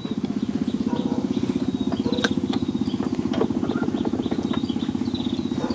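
A small engine running steadily with a fast, even throb, with a few light clicks over it.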